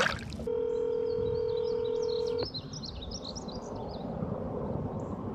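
Telephone ringback tone of an outgoing call still ringing unanswered: one steady ring of about two seconds that cuts off sharply, then a pause. Small birds chirp during the pause.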